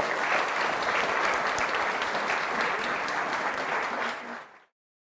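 Audience applauding: dense, even clapping that fades quickly near the end and cuts off to silence.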